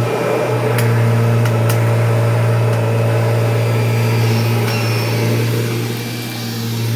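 Kirby Generation 3 upright vacuum cleaner running with a steady low hum, with a few sharp clicks in the first two seconds and a slight dip in level near the end.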